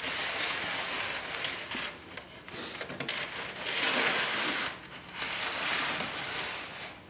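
A model building on its base being slid and turned by hand across a workbench: a rough scraping in several pushes of about a second each, with a few small clicks.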